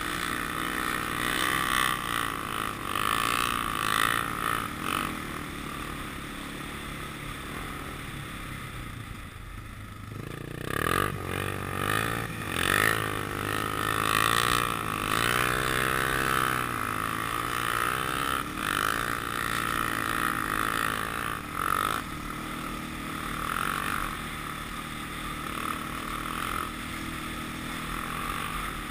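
Honda 400EX sport quad's single-cylinder four-stroke engine running under way, its pitch rising and falling with the throttle. It eases off for a few seconds and then revs back up about ten seconds in.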